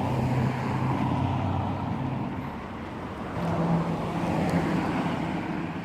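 Steady hum of a motor vehicle with road noise; the hum shifts up in pitch about three and a half seconds in.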